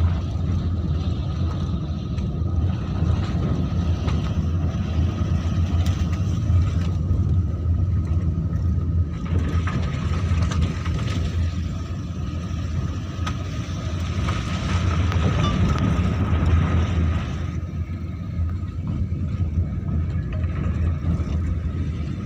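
Car running along a road, heard from inside the cabin: a steady low engine drone with tyre and road rumble. It grows a little louder and brighter between about ten and seventeen seconds in.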